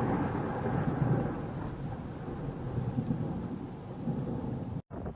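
Rolling thunder over rain, a low rumble that slowly fades, cutting off suddenly near the end.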